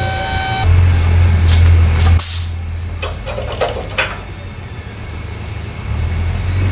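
Four-post alignment rack being operated: its lift motor hums steadily, a sharp hiss of compressed air comes about two seconds in, then several metallic clicks from the rack's locks. The hum starts again near the end.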